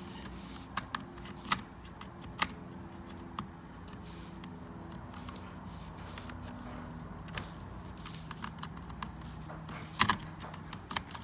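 Scattered clicks and knocks of parts being handled and fitted into a car door's interior, the sharpest about ten seconds in, over a faint steady hum.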